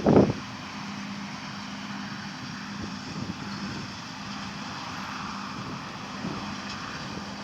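Steady diesel engine drone from John Deere harvest machinery running at constant speed, opening with a brief loud thump.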